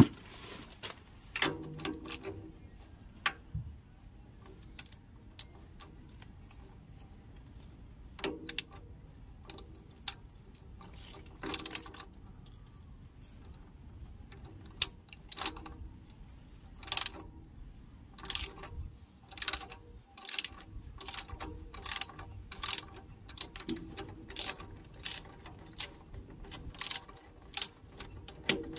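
Socket ratchet wrench clicking as it is swung back and forth on the nut under a transformer's silica gel breather. A few scattered clicks at first, then a steady run of clicks about every half second through the second half.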